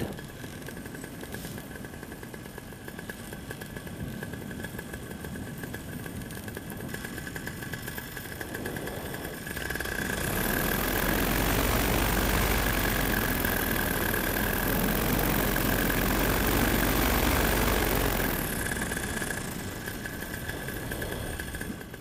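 Paramotor engine idling steadily in flight, its propeller windmilling in the airflow while the wing soars on ridge lift. From about ten seconds in to near the end, a louder rushing noise with a deep rumble rises over it, then fades.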